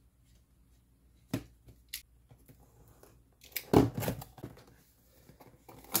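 Cardboard box being cut open with a utility knife and unpacked: scattered scrapes, clicks and short tears of cardboard, with the loudest thump of handling about four seconds in.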